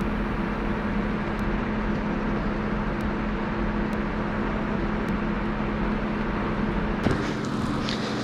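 A vehicle engine idling steadily with an even hum, with a faint click about seven seconds in.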